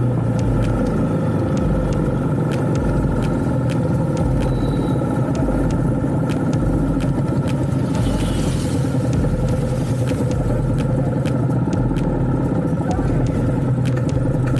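Yamaha R15 motorcycle's single-cylinder engine running at a steady cruise while riding, with wind rumbling on the helmet collar microphone.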